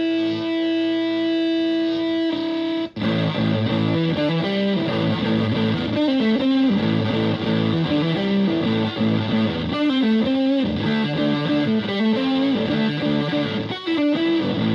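Stratocaster electric guitar played through a Zonk Machine fuzz pedal into a Fender Twin–style amp, the tone heavily fuzzed. A single note is held for about three seconds, cuts off sharply, then gives way to a riff of quickly changing notes.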